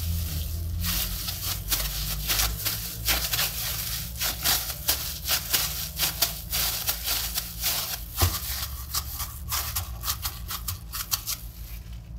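Plastic-gloved hands kneading stiff dough in a glass bowl: rapid, irregular crinkling and crackling of the plastic with squishing dough, over a steady low hum. It dies down near the end.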